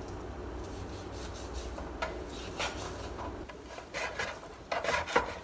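A kitchen knife sawing through raw beef, trimming off fat, and scraping and knocking on a plastic cutting board: soft scraping at first, then sharper scrapes and knocks, the loudest cluster near the end.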